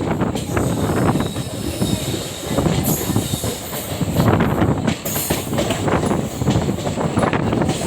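ICF passenger coaches running along the track: a steady rattling rumble with wheel clatter over the rails, and short high-pitched wheel squeals about three seconds in and again about five seconds in.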